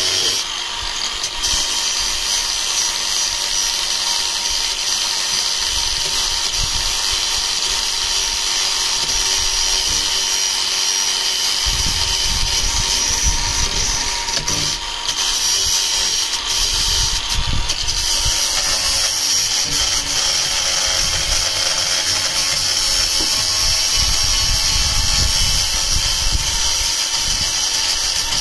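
Cordless angle grinder with a cutting disc running steadily as it cuts through a fiberglass panel along a marked line, a continuous high whine.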